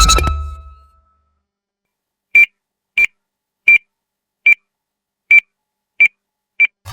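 Sci-fi Predator weapon sound effect: seven short, high-pitched electronic beeps, spaced a little over half a second apart, following the tail of the previous effect fading out in the first second.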